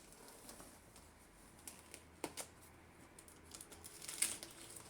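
Light clicks and rustling of a cardboard box and its packaging being handled and opened, with a sharper click a little after two seconds and a brief crackle about four seconds in.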